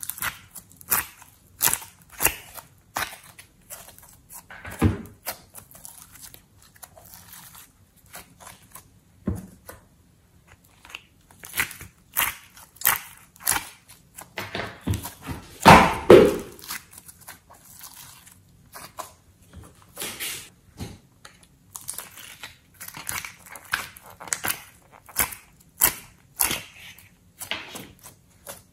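Thick slime being pressed and squeezed by hand, giving irregular sticky crackles and clicks, with a longer, louder squish about sixteen seconds in.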